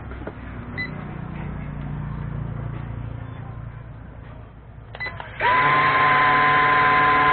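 E88 mini drone's motors spinning up about five seconds in to a loud, steady high-pitched whine.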